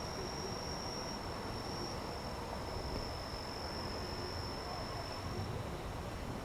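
An insect, of the cricket kind, singing one steady high-pitched trill that fades out about five seconds in, over steady low background noise.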